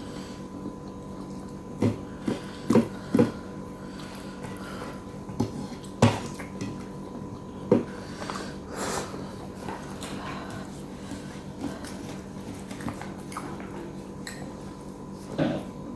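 Scattered clinks and taps of a plate and utensils while eating, a dozen or so short knocks at uneven intervals, with a faint steady hum under them.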